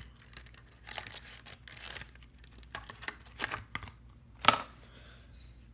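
Packaging of a replacement phone battery kit being handled and opened: intermittent rustling and crinkling with scattered light clicks, and one sharp click about four and a half seconds in.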